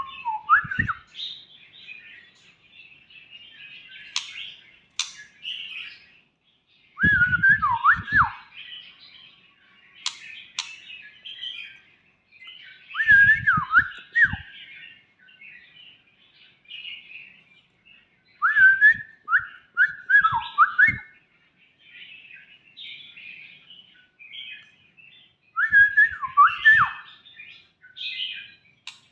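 White-rumped shama singing: loud whistled phrases that slide up and down, in groups about every six seconds, with softer twittering and chirps in between.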